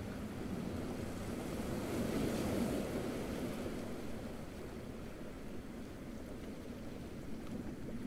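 Small waves washing onto a beach, one swelling and breaking about two seconds in, then easing back to a steady wash.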